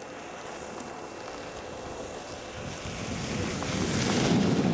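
Wind buffeting a camcorder microphone, a rushing rumble that grows steadily louder through the second half.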